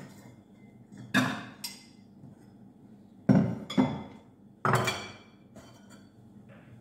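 Ceramic plates and a steel kitchen knife clinking and knocking as they are handled and set down on a countertop: about five sharp knocks with short ringing, in pairs, the loudest around the middle.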